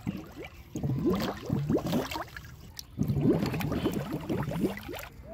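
Shallow river water bubbling and gurgling in two runs of quick rising bloops, as hands work the muddy riverbed and water wells up to the surface.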